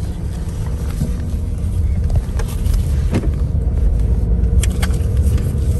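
Car running, heard from inside the cabin: a steady low rumble that grows slightly louder as the car gets under way, with a few light clicks.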